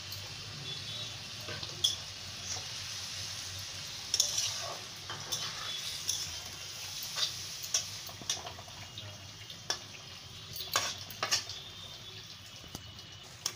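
Potato and drumstick curry sizzling in a pan as a spatula stirs it, with scattered sharp clinks and scrapes of the spatula against the pan.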